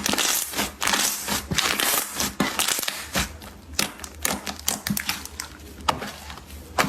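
Slime being squeezed and pressed by hand, giving irregular crackling clicks and pops with bursts of crunching.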